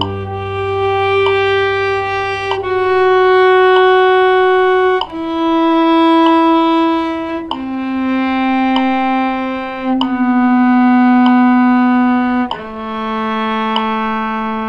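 Cello playing a slow exercise in long bowed notes, each held for about two and a half seconds, in a line that mostly steps downward: six notes in all.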